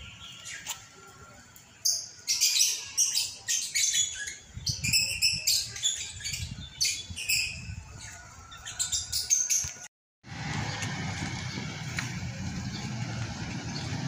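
Caged birds in an aviary calling in loud, rapid bursts of chirps and squawks for several seconds. After an abrupt cut near the end, a steady street-traffic rumble takes over.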